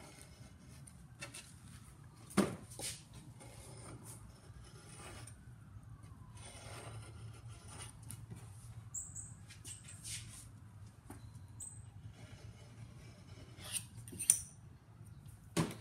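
Craft knife scraping and rasping as it cuts felt around the rim of a cast iron turntable platter, with quiet rubbing as the platter is shifted on a wooden board. Scattered small clicks and a few sharper taps, the loudest about two seconds in and near the end.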